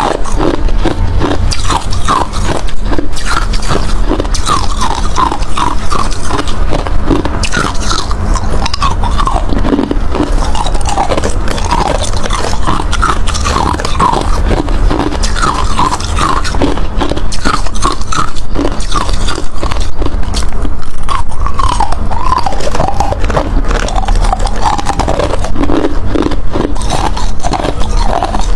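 Hard ice being bitten and chewed close to the microphone: continuous loud crunching and crackling, bite after bite.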